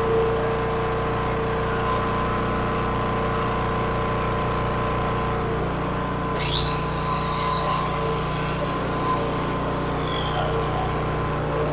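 Old portable gasoline generator engine running steadily. About six seconds in, a burst of high-pitched hiss sweeps up and lasts a couple of seconds over the engine.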